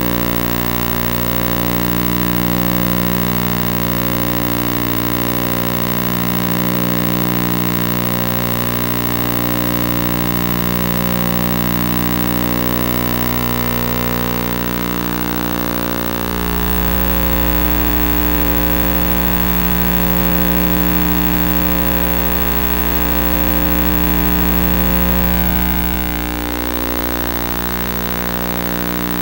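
A steady drone of sustained tones with no beat, its lower notes shifting about halfway through and again near the end.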